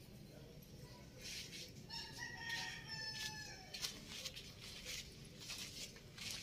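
A rooster crowing once, about two seconds in: one long call that falls slightly at the end, amid a run of short hissy sounds and a steady low rumble.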